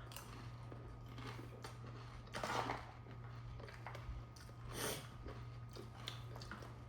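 Close-up eating sounds of panipuri being chewed and crunched, with small clicks and two louder bursts about two and a half and five seconds in, over a steady low hum.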